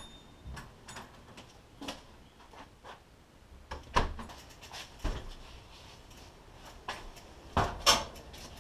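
Mongoose mountain bike being wheeled through a house and out a doorway: scattered knocks, clunks and rattles of the bike and door, with the loudest bangs about four seconds in and near the end as the bike goes through the door.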